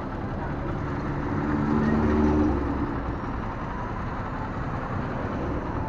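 Vehicle engines idling in traffic, with one engine growing louder about a second and a half in and fading again after about three seconds.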